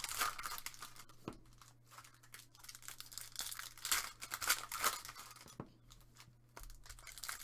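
Foil wrapper of a trading-card pack being torn open and crinkled by hand, in irregular crackling strokes, with the busiest stretch about four to five seconds in.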